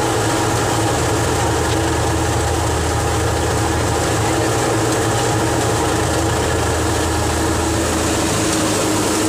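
Tractor-driven threshing machine running steadily at working speed: the old Fiat 480 tractor's engine turning the thresher's drum through a belt, a constant low engine hum under a dense whir from the spinning drum and pulleys.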